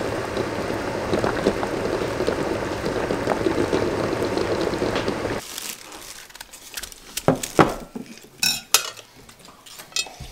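Food cooking on the stove, a steady hiss with small crackles, which cuts off abruptly about five seconds in. After that, scattered clinks and knocks of dishes and cutlery.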